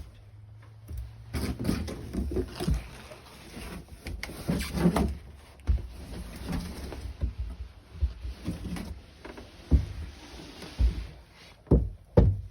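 Irregular scraping, rustling and knocking of handling and movement around the three-wheeler in a cramped room, with a few sharp knocks near the end.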